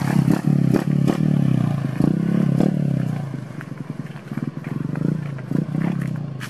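Yamaha Exciter 135 LC motorcycle engine, bored up to 57 mm, running while the bike is ridden. The engine note is loud for the first few seconds and drops noticeably about halfway through as the throttle eases.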